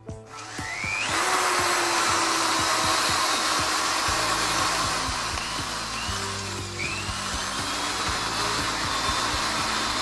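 White Dove 10 mm corded electric drill switched on by its trigger, its motor spinning up with a rising whine about half a second in, then running steadily at speed, with a slight dip in loudness around the middle.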